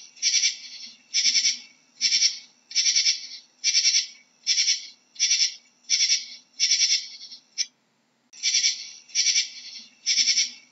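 Katydid calling: a high, rasping chirp, each made of several quick pulses, repeated about every three-quarters of a second, with one short break in the series about three-quarters of the way through.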